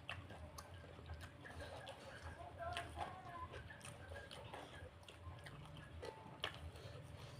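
Faint chewing and biting of food, with scattered small clicks and mouth noises.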